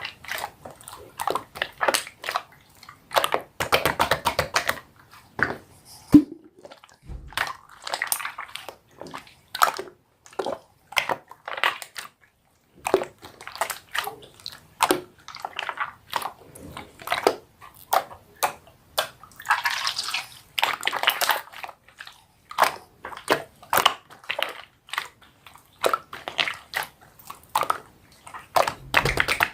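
Slime being squeezed, poked and stretched by hand, making an irregular run of wet clicks and pops, with two longer stretches of dense crackling squelch.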